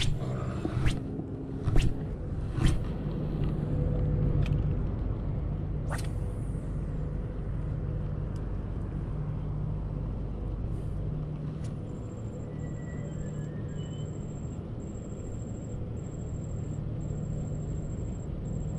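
Steady low hum of a small boat engine running, with a few sharp knocks in the first three seconds.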